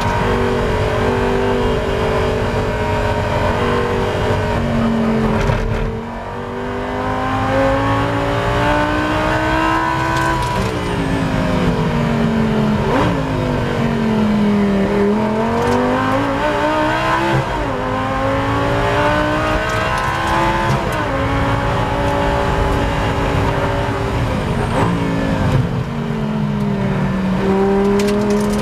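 Lamborghini Gallardo Super Trofeo race car's V10 engine heard from the cockpit through a sequence of corners. The pitch climbs under acceleration and drops suddenly at gear changes, about 6, 10, 17, 21 and 25 seconds in, and sinks steadily while the car slows into a corner around 12 to 15 seconds in.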